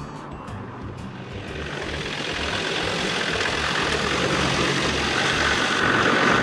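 Land Rover Defender 110's engine running as it drives up over sand and gravel, tyres crunching, getting steadily louder as it approaches.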